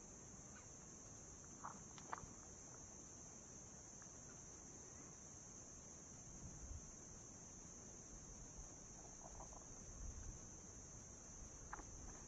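Faint, steady high-pitched insect chorus, with a few short bird chirps about two seconds in, around nine seconds in, and near the end.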